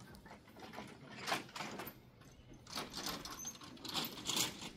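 Faint, irregular rattling of an empty pull wagon being towed across grass.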